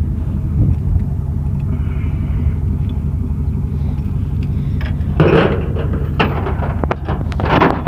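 An engine running steadily with an even low hum, with short bursts of rustling about five seconds in and again near the end.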